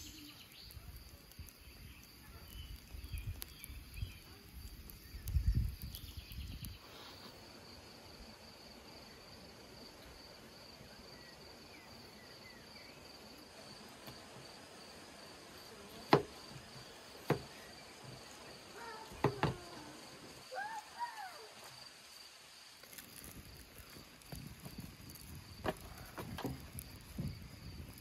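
Crickets or other insects chirping steadily in a high, even trill. Midway comes a short run of sharp knocks, a knife striking a wooden cutting board as tomatoes are sliced.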